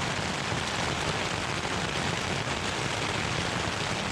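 Heavy rain pelting a single-wall tent, heard from inside as a dense, steady hiss.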